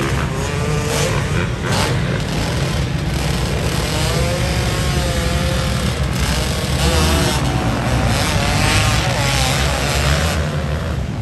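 A pack of motocross dirt bikes racing on a dirt track, their engines revving up and down with several overlapping rising and falling whines.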